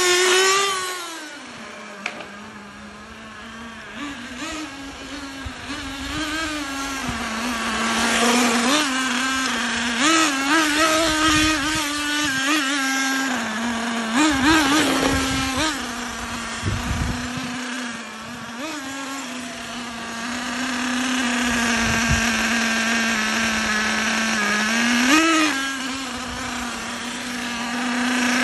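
Small two-stroke glow (nitro) engine of a 1/10 on-road RC car running on a test drive after service for a seized engine, settling to a steady buzz between repeated bursts of revving up and down as the car drives past. The revs rise and fall several times, with the loudest bursts near the start, in the middle and near the end.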